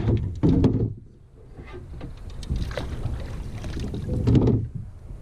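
Wind rumbling on the microphone, with scattered light knocks. It drops off about a second in and swells again near the end.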